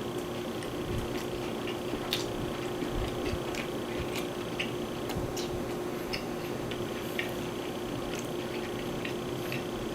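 A person chewing a sandwich, with scattered small wet mouth clicks at irregular moments, over a steady low hum.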